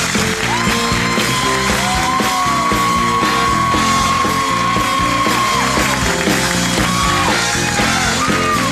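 Live band music: a drum kit keeping a steady beat under a horn section of trumpet, saxophone and trombone playing long held notes that bend at their ends.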